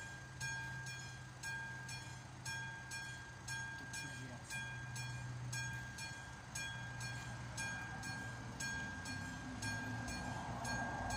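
Level-crossing warning bell of an AŽD 71 crossing signal, a classic mechanical bell, striking steadily about twice a second, with each stroke ringing on: it signals that the crossing is closed for an approaching train. A low steady hum runs underneath, and a rushing noise grows near the end.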